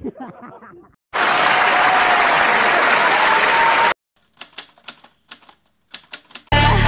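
Loud, even clapping of applause for about three seconds, with a faint tone rising slightly through it, cut off abruptly. A few faint scattered clicks follow.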